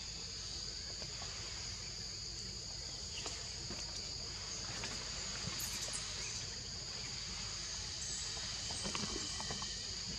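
Steady, high-pitched drone of forest insects, holding two constant pitches, with a few faint clicks and rustles now and then.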